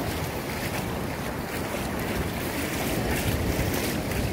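Sea waves washing steadily over the shore, with wind buffeting the microphone.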